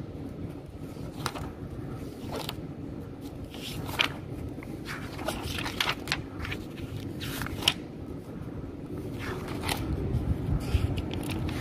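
Paper pages of a spiral-bound manual being flipped and handled, with scattered rustles and sharp flicks, over a low steady background rumble.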